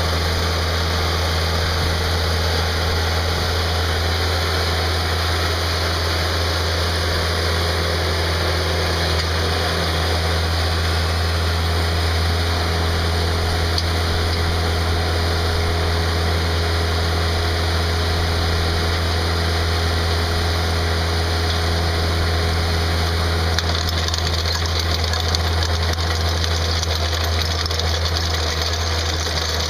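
Ditch Witch 8020 trencher's engine running steadily, with a slightly harsher rattle in the last few seconds.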